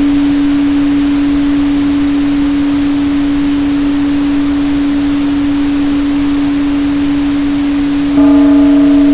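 Steady 285 Hz hum over an even pink-noise hiss. About eight seconds in the tone is struck again: it gets louder, and several higher ringing overtones appear above it, like a singing bowl.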